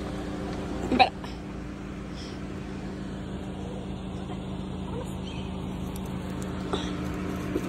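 A steady low motor hum, with one brief short sound about a second in.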